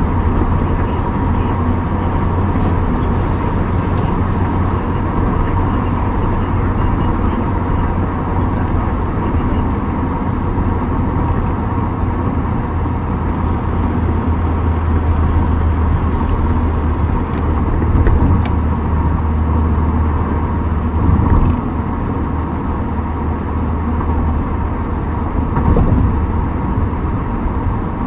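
Steady low rumble of a car's engine and road noise, with a thin steady tone above it and a few brief swells.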